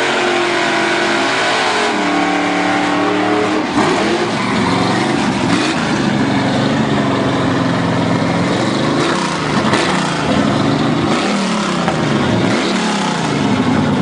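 Car engine accelerating hard through the gears: its pitch climbs and drops back at each of several gear changes, over steady road and wind noise.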